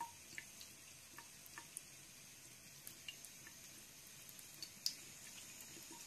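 Faint trickle of a thin stream of water running from a bathroom faucet into the sink, with small irregular drips and clicks as a cat drinks from the stream.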